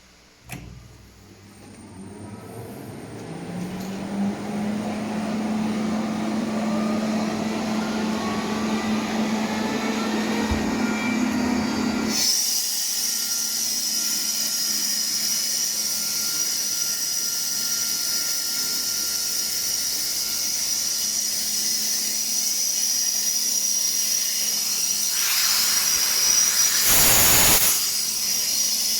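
Atlas Copco GA 11 VSD rotary screw compressor starting with a click. Its inverter-driven 11 kW motor ramps up in pitch over the first few seconds, then runs steadily. About twelve seconds in the sound changes to a steady high hiss of air, and near the end a louder rush lasts about two seconds.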